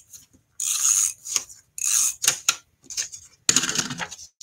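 Adhesive tape runner swiped in short scratchy strokes across the back of patterned paper, with paper rustling and small clicks between strokes. The longest, fullest stroke comes about three and a half seconds in, as the sheet is handled.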